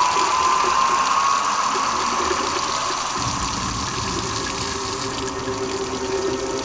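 A faucet running hard, liquid gushing into a filled sink, with a faint tone slowly rising behind it and a low rumble coming in about halfway through.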